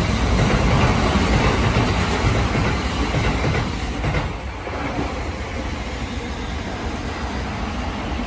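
Keikyu electric trains running through the station: the loud rumble and rail noise of a departing train fades and dips about four seconds in, then a second train's steady running noise takes over as it comes in along the platform.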